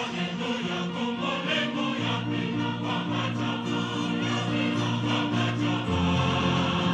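A large choir singing a hymn in held notes, accompanied by a church brass band of trumpets and sousaphone with violins, over a steady low bass line.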